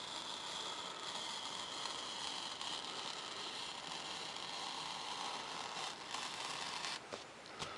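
Hobby knife blade drawn steadily through a sheet of 3 mm Depron foam and the paper plans on top of it, a continuous scratchy hiss that shifts slightly in pitch as the cut follows a curve. The cutting stops about seven seconds in, followed by a single light click.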